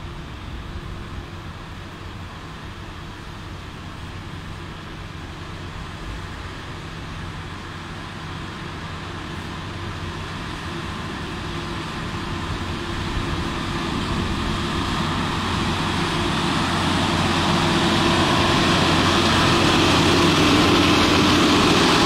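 Engine of a heavy snow-clearing vehicle running with a steady low hum, growing steadily louder, with more hiss toward the end.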